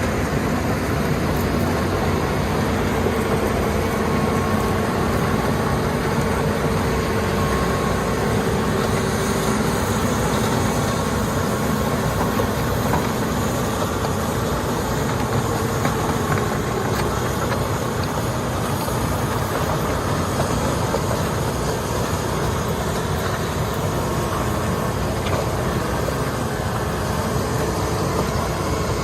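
Hitachi Zaxis 210 excavator's diesel engine running steadily, with a faint steady whine on top.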